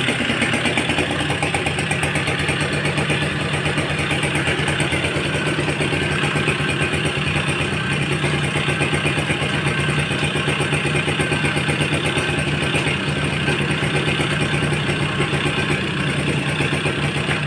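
Suzuki Tornado GX motorcycle's two-stroke single-cylinder engine idling steadily at an even pitch.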